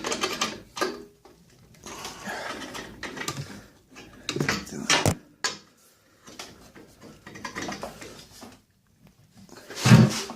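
Hardware being handled while fitting a table-saw fence: irregular scraping and clicking, a few sharp knocks about five seconds in, and one loud knock near the end.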